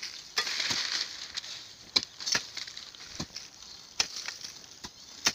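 Hand hoe chopping into soil while digging a planting pit: several sharp strikes at uneven intervals, with earth scraping and crumbling between them.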